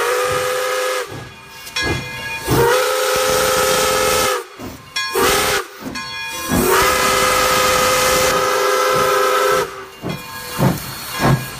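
Steam locomotive whistle sounding a series of blasts, the longest about three seconds, over the steady hiss of escaping steam.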